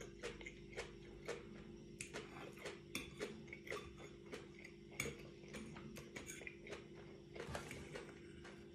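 Metal fork clinking and scraping on a china plate while twirling spaghetti, a string of short, sharp clicks at irregular intervals. A steady low hum runs underneath.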